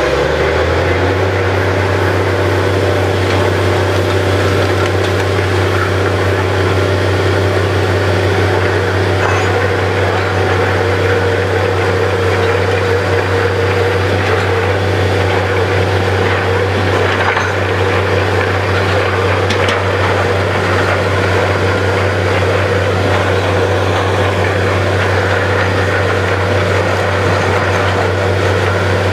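Borewell drilling rig's engine running steadily, a loud even drone. Its pitch dips briefly and recovers at the very start.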